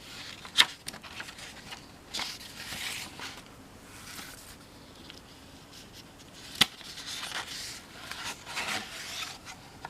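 Paper picture book being handled: pages rustling and rubbing, with a sharp tap about half a second in and another about two-thirds of the way through.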